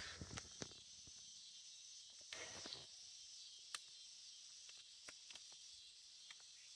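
Near silence with a steady faint high hiss, broken by scattered small ticks and crinkles of paper as the backing sheet is peeled off a vinyl decal by hand.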